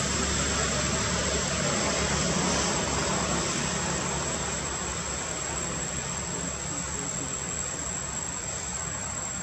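Steady drone of a distant engine with a broad rushing noise, loudest a couple of seconds in and easing off a little after. A thin, steady high whine runs above it.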